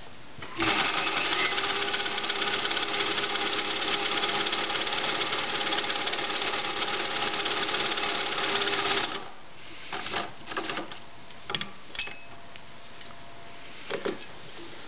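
A 1956 Pfaff 130-6 sewing machine runs at steady speed, stitching fabric for about eight seconds, then stops suddenly. A few short clicks and knocks follow as the machine and fabric are handled.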